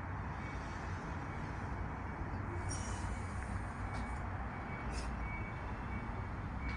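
Steady low rumble and hiss of background noise, with a few faint ticks.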